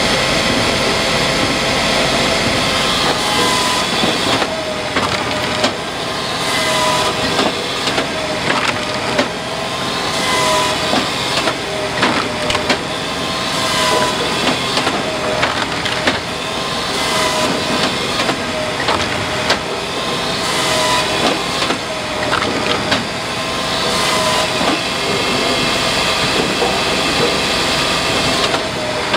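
Hakki Pilke 37 Easy firewood processor running continuously, its chain saw cutting logs to length and its splitter forcing them through the blade in a cycle that repeats every few seconds, with a whine rising and falling and knocks of split wood dropping onto the conveyor.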